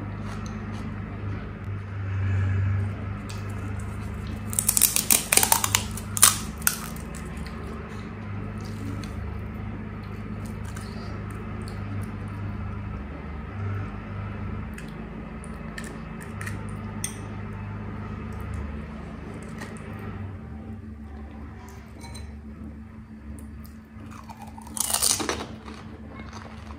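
Crisp pani puri shells crunching as they are bitten and chewed close to the microphone, in crackly clusters about five seconds in and again near the end, with fainter mouth clicks between. A low steady hum runs underneath.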